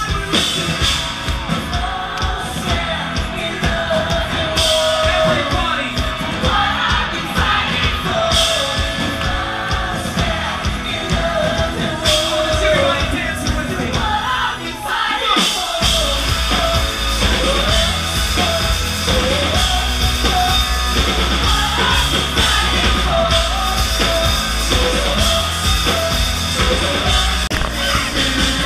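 Live rock band playing loud through a festival PA: a male lead vocal over electric guitar and drums. About halfway through, a heavy bass comes in and carries the rest of the song.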